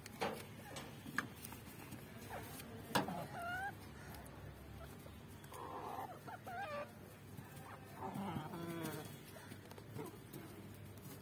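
Chickens making soft, wavering clucks and short rising calls while feeding, in a few separate spells, with several sharp clicks in the first few seconds.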